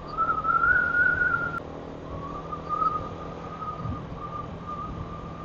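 A high whistling tone that wavers a little in pitch, loudest for about the first second and a half and then fainter, over the low steady hum of a motorcycle on the move.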